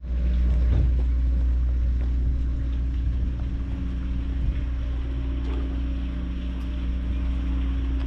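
Moored passenger ferry's engine running at idle: a steady low drone with an unchanging hum, and a few faint ticks over it.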